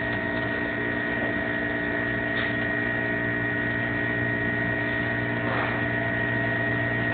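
Refrigeration unit running: a steady mechanical hum with a constant high-pitched whine over it.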